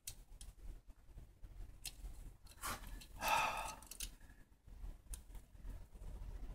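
Faint clicks and small taps of a wooden snap mousetrap's metal bar and trigger being handled as it is set, with one breathy exhale a little past three seconds in.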